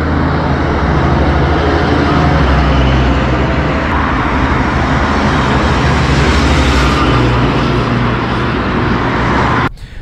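JCB 3CX Pro backhoe loader's 4.8-litre diesel engine running steadily at road speed as the machine drives past on asphalt, with tyre noise. The sound cuts off suddenly near the end.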